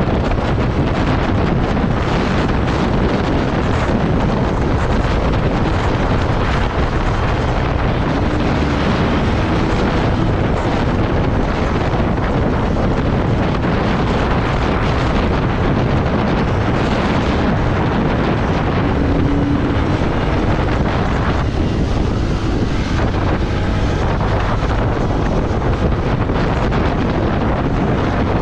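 Steady loud wind rush buffeting the microphone of a camera on a motorcycle riding at speed, covering the bike's own engine.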